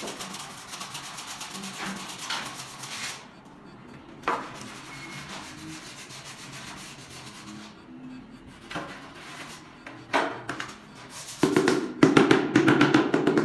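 Rubbing and scraping on the back of a large porcelain floor tile, then a few single knocks as the tile is handled. Near the end comes a rapid run of mallet taps on a laid floor tile, bedding it into the tile adhesive; this is the loudest part.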